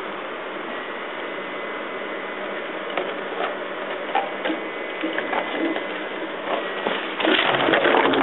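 Empty plastic water bottles knocking and crinkling as a puppy noses and pushes through them: a few scattered knocks at first, then a dense burst of rattling near the end, over a steady background hiss.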